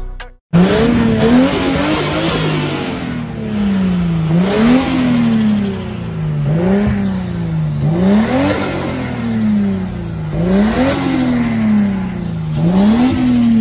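A car engine revved again and again, about seven times: each rev rises quickly in pitch and then falls back slowly before the next.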